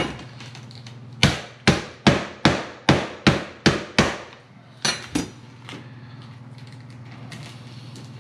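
Chef's knife chopping through the hard, smoked armored body of a whole armored catfish (pleco) onto a cutting board: a run of eight sharp chops about two and a half a second, then two more after a short pause.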